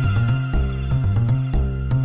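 Background music with a steady beat of about two pulses a second over a bass line.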